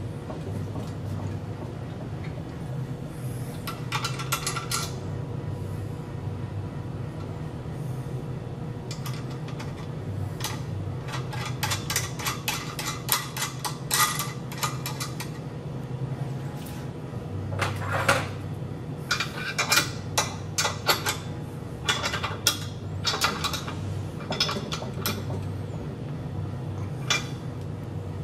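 A rubber V-belt being worked by hand onto the motor pulley and flywheel of a riveting machine: scattered clicks, knocks and light metallic clinks as the belt and fingers meet the pulley, flywheel and guard bracket, busiest in the second half, over a steady low hum.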